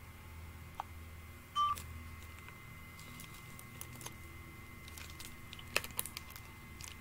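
Long fingernails clicking against a phone's touchscreen, a few scattered light taps over a low steady hum, with a brief electronic beep about a second and a half in.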